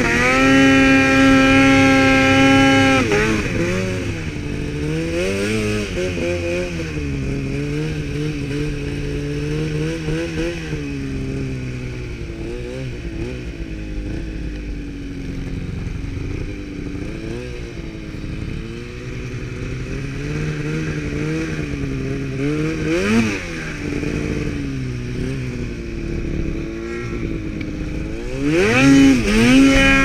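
Mountain snowmobile engine held at high, steady revs for the first few seconds, then dropping and rising repeatedly as the throttle is worked through deep powder, climbing high again near the end.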